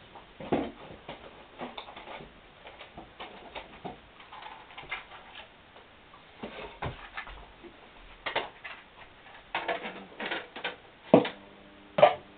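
Scattered faint clicks and rustles of a compact cassette being handled, ending with a couple of sharper clicks near the end as the cassette is pushed into the compartment of a Tom M-304S cassette recorder.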